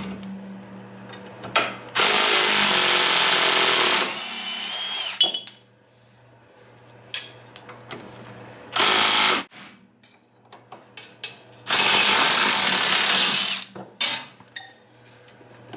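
Cordless impact wrench hammering on the strut-to-steering-knuckle bolts: two bursts of about two seconds with a short one between, then running down. Metal clinks and knocks from the loosened parts fall between the bursts.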